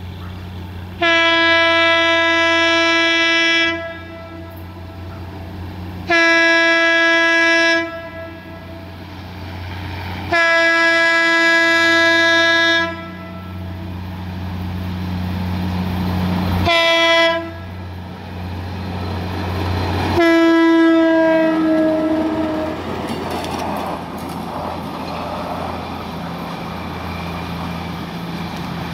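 Diesel train's air horn sounding five blasts: three long, one short, then a final long one that drops in pitch as the train passes. The last four follow the long-long-short-long grade-crossing pattern. A low engine hum runs under the horn, and the train's passing rumble and wheel clatter follow.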